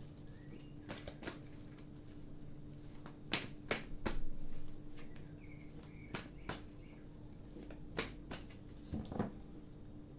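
Tarot cards being shuffled by hand: irregular soft riffles and snaps, over a faint steady hum.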